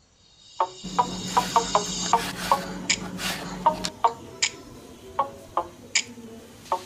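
Kitchen knife chopping a green capsicum on a wooden cutting board: a string of sharp, irregular knocks, starting about half a second in.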